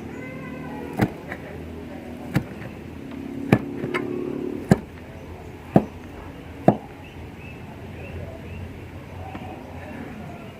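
Knife chopping through boiled beef skin onto a cutting board: about six sharp knocks roughly a second apart, which stop after about seven seconds.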